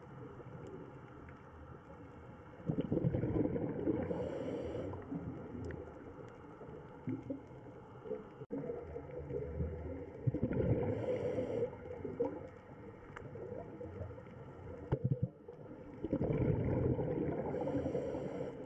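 Scuba diver breathing through a regulator underwater: three surges of exhaled bubbles rushing and gurgling, about six to seven seconds apart, each with a short hiss from the regulator, over a steady low underwater hum.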